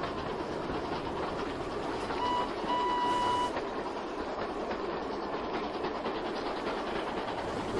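Steam engine whistle blowing twice, a short blast then a longer one, about two to three seconds in, over a steady rushing noise.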